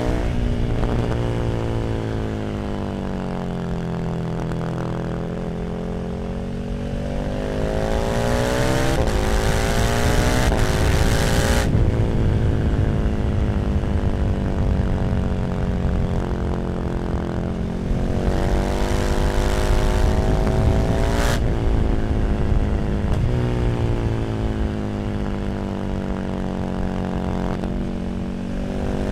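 KTM 1290 Super Duke R V-twin engine through an Arrow slip-on exhaust. Twice the revs climb steadily for several seconds, then drop off sharply as the throttle closes and the engine winds down.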